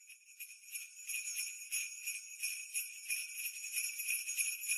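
Sleigh bells shaken in a steady rhythm, fading in over the first second.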